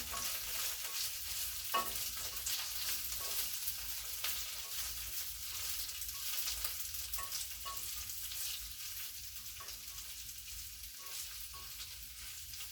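Beans poriyal sizzling in hot oil in a pan while a spatula stirs it, with irregular scrapes and taps against the pan over a steady sizzle that eases a little toward the end.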